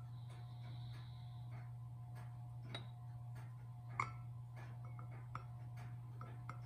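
Faint, even ticking about twice a second, like a clock, over a low steady hum, with one light porcelain clink from the china teapot about four seconds in.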